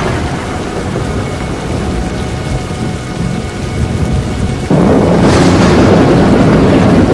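Tornado storm noise: wind and heavy rain as a continuous rushing din that jumps suddenly louder about four and a half seconds in.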